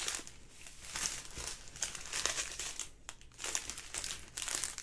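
Small clear plastic bags of diamond-painting drills crinkling in irregular bursts as they are handled and sorted.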